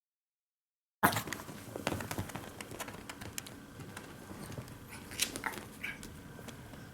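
After about a second of dead silence, sound cuts in with faint rustling and scattered light ticks and clicks that thin out over the next few seconds.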